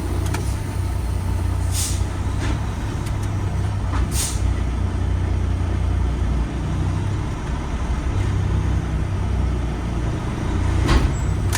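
Kenworth semi-truck's diesel engine running low and steady while the trailer's tandem axles are slid, with short hisses of air from the brakes about two and four seconds in and again near the end.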